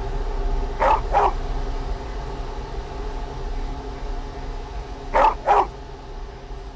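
A dog barking twice in quick pairs, one pair about a second in and another about five seconds in, over a steady low drone.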